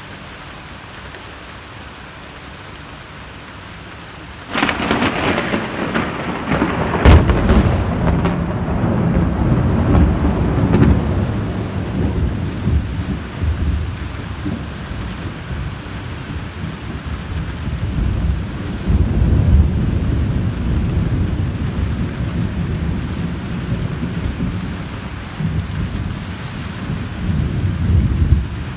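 Steady rain, then about four seconds in a nearby thunderclap breaks in suddenly, with sharp cracking a few seconds later. It rolls on as a long low rumble of thunder that swells again twice before the end, with the rain continuing under it.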